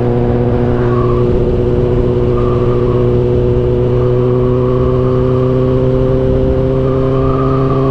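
Kawasaki ZX-10R's inline-four engine running steadily under way, its note rising slowly and evenly.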